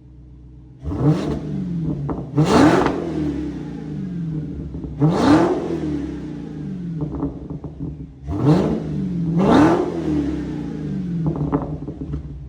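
Dodge Demon 170's supercharged 6.2-litre Hemi V8 idling and revved about five times through its stock exhaust, each rev climbing sharply and dropping back to idle.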